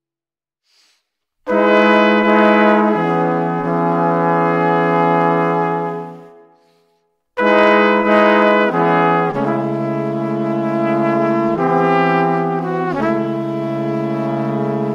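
Background music: a slow brass melody of long held notes that step from pitch to pitch, in two phrases. It starts about a second and a half in and breaks briefly around six seconds in.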